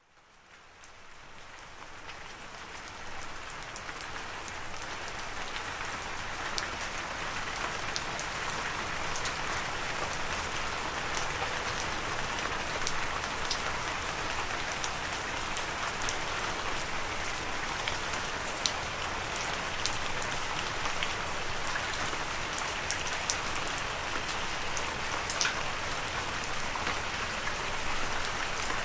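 Steady rain falling, with individual drops ticking through the hiss. It fades in from silence over the first few seconds.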